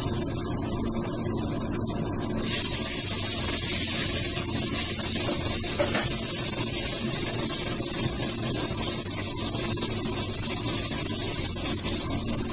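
Green pea paste sizzling in hot oil in a frying pan as it is stirred with a wooden spatula: a steady hiss that gets louder about two seconds in.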